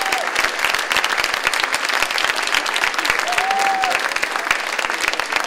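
Audience applauding steadily after a dance performance, a dense, even clapping.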